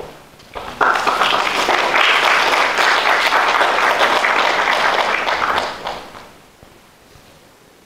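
Audience applauding in a hall. It starts suddenly about a second in, holds steady for several seconds and dies away near the end.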